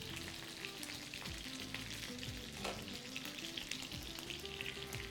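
Tilapia frying in a skillet: a steady sizzle with fine crackling, the fish nearly cooked through.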